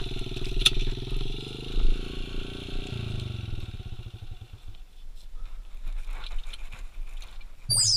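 A pit bike's small single-cylinder engine running steadily, then dropping off and fading out about three to five seconds in. Near the end a loud electronic swoosh that falls and then rises in pitch begins.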